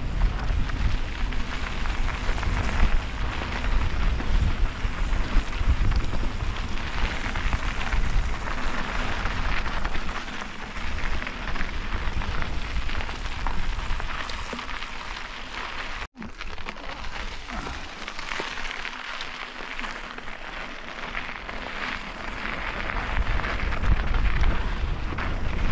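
Mountain bike riding down a dirt and gravel singletrack: tyres crunching over the trail and the bike rattling, with wind buffeting the microphone, heaviest near the start and end. The sound cuts out for an instant about two-thirds of the way through.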